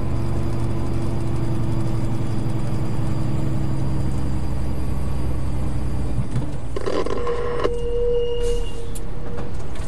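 Steady engine and road hum of the dashcam vehicle as it drives slowly along a winding road. About six seconds in the hum changes, with a short rush of noise and then a held mid-pitched tone lasting nearly two seconds.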